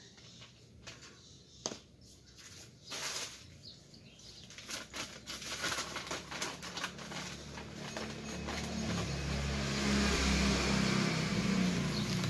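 Plastic sheeting rustling with small clicks as pots and cuttings are handled, then a passing motor vehicle's engine swells into the loudest sound about two-thirds of the way in.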